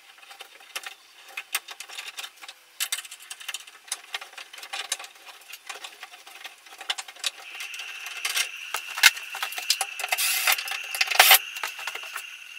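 Copper tubing cutter being worked around copper water pipe: repeated small metallic clicks and scraping, joined about halfway through by a steady high-pitched squeal with a few louder clicks.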